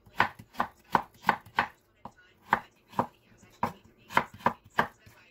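Kitchen knife chopping pineapple into small cubes on a wooden cutting board: a quick, even run of knife strikes against the board, about three a second, with a brief pause about two seconds in.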